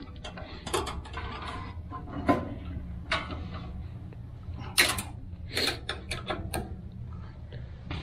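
Scattered metallic clicks and knocks of hand tools working on a unit ventilator's sheet-metal cabinet, over a steady low hum. The loudest clack comes about five seconds in.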